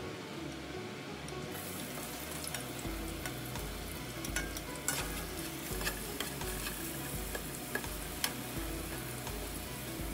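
Onion and garlic sautéing in oil in a nonstick pot: a sizzle that comes up about a second and a half in, with scattered scrapes and taps of a spatula stirring against the pan.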